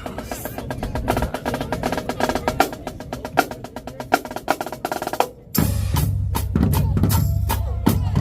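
Marching drumline playing a cadence: rapid snare drum strokes, then after a brief break about five and a half seconds in, the bass drums come in heavily under the snares.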